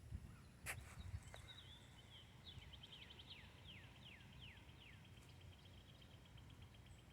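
Faint small birds calling: a run of short, high, downward-sliding chirps, then a fast, even trill of high ticks. A single sharp click sounds just under a second in.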